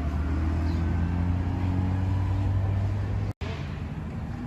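Steady low mechanical hum with faint hiss. It cuts out abruptly about three seconds in, then comes back quieter.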